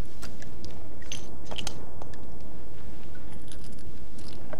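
Revolver being reloaded by hand: a scattering of small metallic clicks and clinks as cartridges are handled and pushed into the cylinder, over a steady low background noise.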